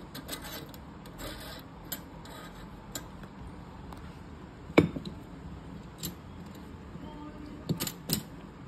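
Scattered metal clinks and knocks from a chrome coil spring being handled and fitted onto the bolt of a Bajaj scooter seat frame. The sharpest knock comes about five seconds in, with two more close together near the end.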